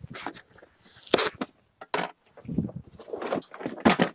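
Yellow plastic packing straps pulled off a cardboard box: irregular scraping, rustling and snapping of plastic strap against cardboard, with sharper snaps about a second in and again near the end.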